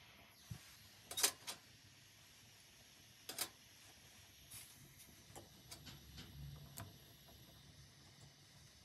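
A soldering torch's hiss cuts off right at the start, then come a few sharp metallic clicks and taps as tweezers and tools are handled on the honeycomb soldering board. The loudest click comes about a second in and another at about three and a half seconds, with fainter ticks later on.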